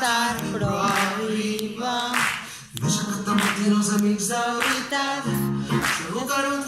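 Live singing with grand piano accompaniment.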